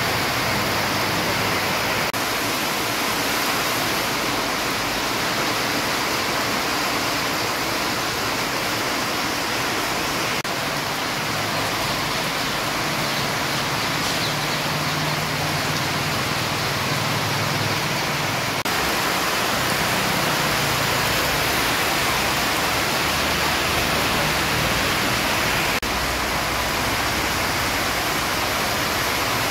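Heavy rain falling steadily on a street, a dense even hiss. A low engine hum from passing traffic sits faintly under it through the middle.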